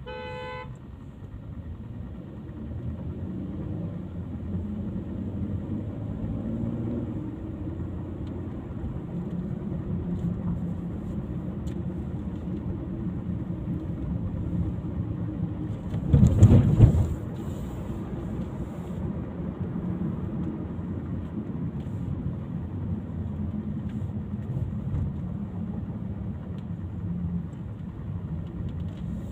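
Car engine and road noise while driving, picking up speed in the first few seconds. A short beep right at the start, and a loud thump about halfway through.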